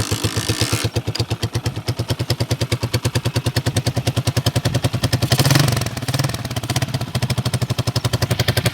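Carburetted single-cylinder engine of a Honda CG motorcycle idling loudly with a rapid, even exhaust beat. It briefly picks up, about five and a half seconds in, then settles back.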